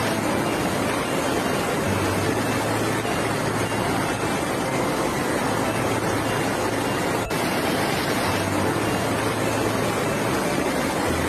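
Storm floodwater rushing: a steady, loud hiss with a low hum that comes and goes and a single click about seven seconds in.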